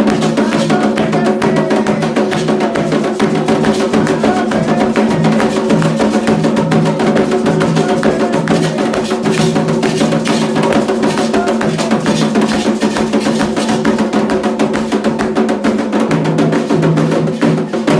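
Candomblé ritual drumming on atabaque hand drums in a fast, dense, continuous rhythm, with a sharp click-like bell or wood-block part on top. It stops abruptly near the end.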